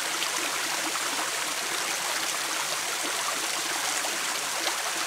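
Spring water falling from a small spout and splashing steadily into a muddy channel below, with a plastic bottle held under the stream to fill.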